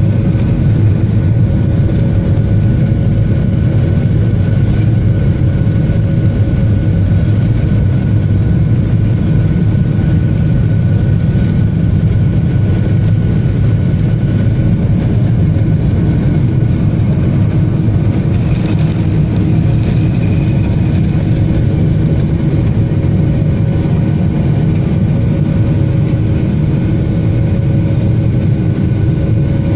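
Jet airliner's turbofan engines at takeoff thrust, heard inside the cabin through the takeoff roll and liftoff: a loud, steady rumble with a few steady tones over it. A brief higher hiss comes about two-thirds of the way through.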